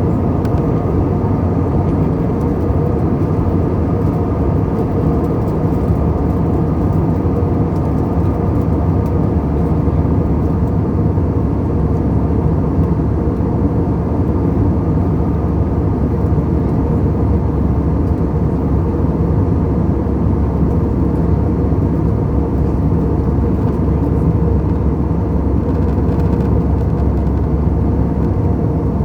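Airbus A320 jet airliner noise: a steady, unchanging low rumble.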